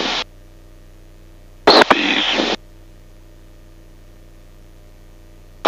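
UL Power 350iS engine and propeller at full takeoff power, heard only as a faint, steady low hum through the aircraft intercom. About two seconds in there is a short burst of radio noise, under a second long.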